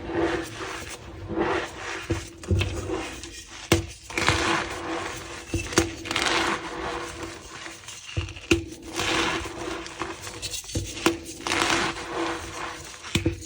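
Reformed gym chalk blocks crunching and squeaking as they are squeezed and broken apart by hand. The crunches come irregularly, with sharp cracks throughout.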